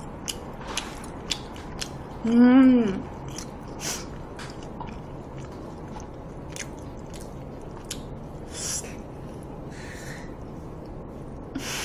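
Close-up chewing and biting of braised pig's trotters (jokbal) eaten off the bone, with scattered small wet clicks and smacks, and a short hummed voice sound about two and a half seconds in.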